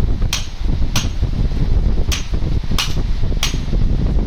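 Hammer striking steel five times at an uneven pace, each blow a sharp metallic clang with a brief ring, over a steady low rumble.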